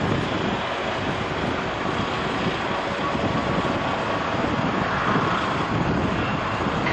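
Boeing 777-300ER's GE90 turbofans at low taxi power as the jet rolls along the taxiway: a steady jet rumble and hiss with a faint whine.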